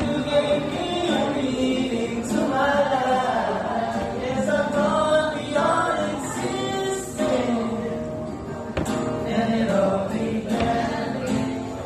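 Several voices singing a slow love song together over instrumental backing.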